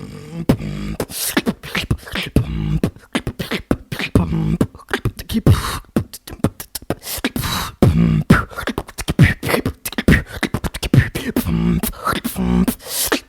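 A man beatboxing: a fast, dense run of vocal drum sounds, sharp clicks and snare-like hits with deep kick thumps, mixed with short hummed low notes.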